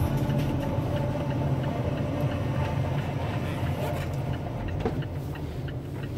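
Low steady rumble of a car's engine and tyres, heard from inside the cabin while driving.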